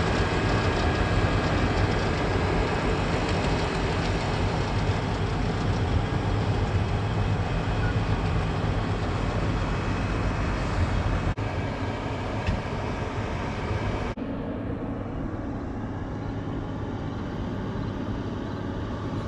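Heavy diesel farm machinery running steadily, with a deep engine hum under a broad mechanical din. The sound changes abruptly about 11 seconds in and again about 14 seconds in, going duller after the second change.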